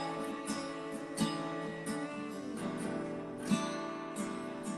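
Acoustic guitar strumming chords of a slow worship song, with no singing.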